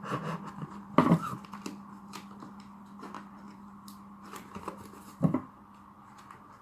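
A shipping parcel being cut open and handled: scattered snips and rustles of packaging, with two louder knocks about a second in and about five seconds in. A faint steady hum runs underneath.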